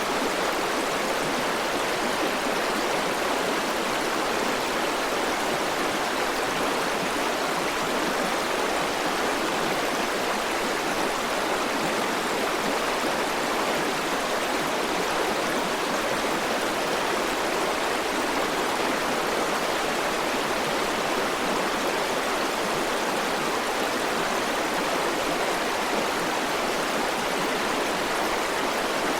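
River water flowing over rocks in a steady, unbroken rush.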